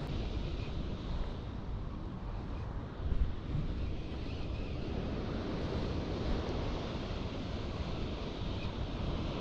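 Wind rumbling on the microphone at sea, steady with a brief louder gust about three seconds in.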